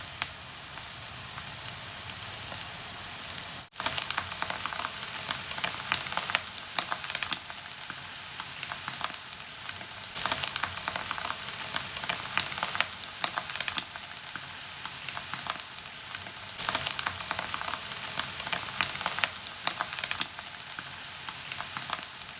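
Thai omelette of beaten egg frying in hot oil in a pan: a steady sizzle with frequent sharp crackling pops. The sound cuts out briefly a little under four seconds in.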